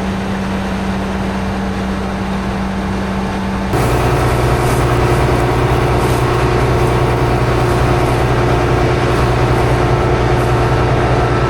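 Combine harvester running with a steady mechanical hum; about four seconds in it abruptly becomes louder and deeper, and holds there.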